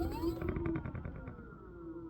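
Synergy electric scooter's motor whining up in pitch as the throttle is blipped, then slowly winding down. As it spins up there is a short, fast grinding rattle of about a dozen clicks. This is the random grinding heard when the throttle is pulsed, which the owner thinks could be something out of alignment.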